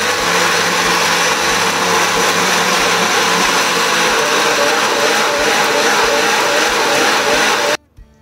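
Prestige personal blender running steadily, pureeing watermelon cubes and ice into juice, then cutting off abruptly near the end.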